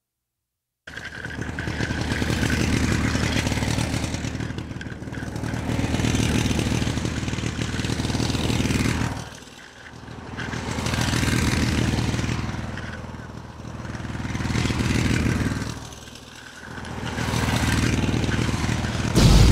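Radio-controlled scale off-road truck driving, its motor sound swelling and dropping about every three to four seconds as the throttle is worked. A loud thump near the end.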